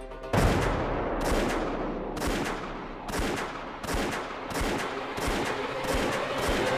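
A series of heavy, echoing typewriter key strikes used as a trailer sound effect: about eight hard hits, roughly one every 0.8 seconds, each ringing on briefly after the hit.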